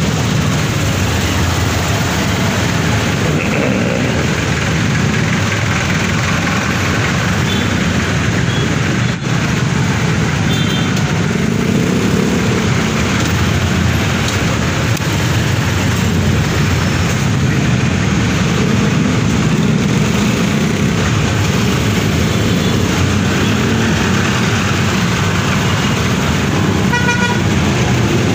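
Honda CB125 motorcycle riding in slow city traffic: steady engine and road noise. Short vehicle horn toots sound about a third of the way in, and a longer series of toots comes near the end.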